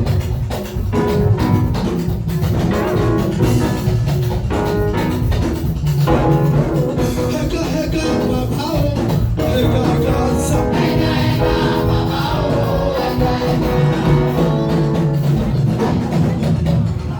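Live gospel praise music with singing over a drum kit and bass, a steady dance beat.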